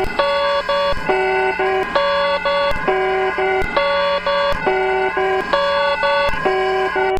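Emergency alert system alarm: a short phrase of stepped electronic tones repeating about once a second, cutting off abruptly at the very end.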